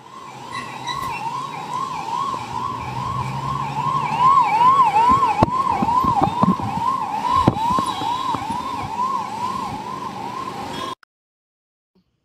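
Ambulance siren sounding a fast yelp, each cycle rising in pitch and then dropping, about two cycles a second, over a low rumble with a couple of thumps midway. It fades in at the start and cuts off abruptly about a second before the end.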